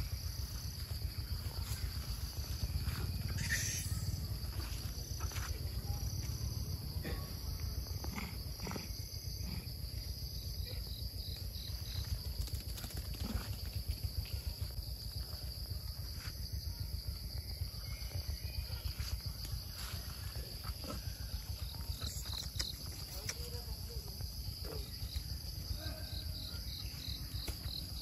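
A steady, high-pitched insect chorus drones throughout, with short runs of rapid chirps from another insect a few times, over a low rumble and scattered faint rustles and ticks.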